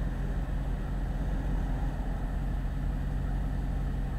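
Mercedes-Benz SLS AMG's 6.2-litre V8 running steadily at idle, a deep even rumble with no revving.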